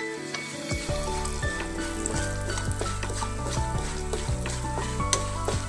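Roasted gram (pottukadala, split roasted chickpeas) frying in hot coconut oil in a pan, sizzling steadily, with many small clicks as the grains are stirred.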